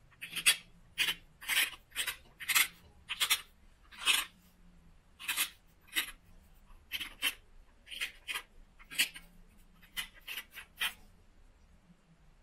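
A coarse abrading stone rasped in short strokes along the edge of a Wyoming tiger (oil) chert preform, about twenty quick scrapes at roughly two a second that stop near the end: grinding the edge to prepare striking platforms for flaking.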